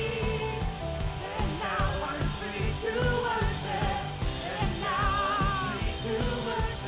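Worship music: a band playing to a steady beat, with singing.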